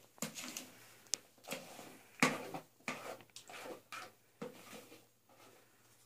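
A utensil scraping thick chocolate cake batter out of a plastic mixing bowl into a lined cake tin, in repeated strokes about two a second. There is a sharp click about a second in and a louder knock a little after two seconds in, and the scraping dies down near the end.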